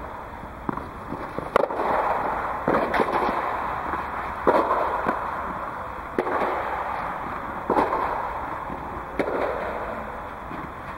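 Tennis balls being struck by racquets and bouncing on the court, sharp pops every second or so, each followed by a long echo inside an inflated tennis dome.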